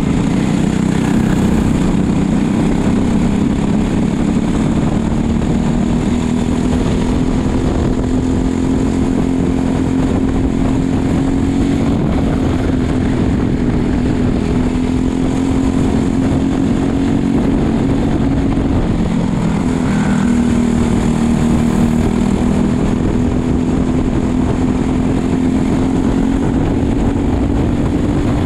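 Racing kart's engine running hard under load, its pitch climbing slowly along a straight, falling back about two-thirds of the way through, then climbing again.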